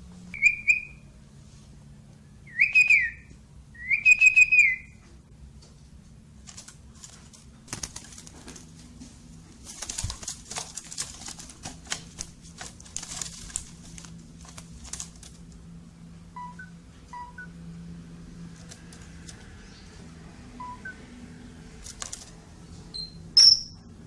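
Javan pied starling (jalak uren) giving three loud, arched whistled calls in the first few seconds, then a long stretch of rustling and wing fluttering in its cage. One sharp, high call comes near the end.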